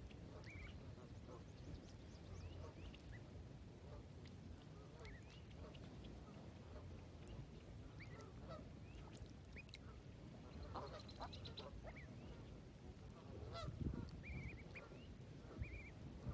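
Mallard ducklings giving many short, faint peeps, with a few louder duck calls among them, the loudest about fourteen seconds in. A low steady rumble runs underneath.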